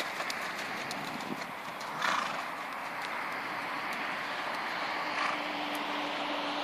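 Hoofbeats of a horse cantering around a sand-and-gravel arena, with one short louder burst about two seconds in.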